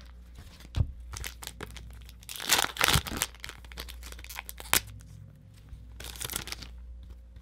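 Wrapper of an Upper Deck 2017-18 Series 2 hockey card pack being crinkled and torn open. The crinkling is loudest about two and a half to three seconds in and comes again near the end, with a few sharp taps between.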